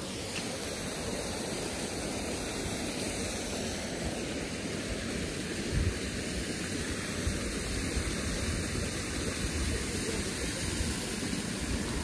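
Steady rush of water running from a drinking-water tap at a mineral spring.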